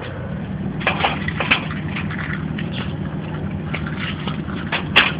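A steady low engine hum, like a vehicle idling, under irregular knocks and rustles of a handheld camera being carried by someone walking, with one sharper knock near the end.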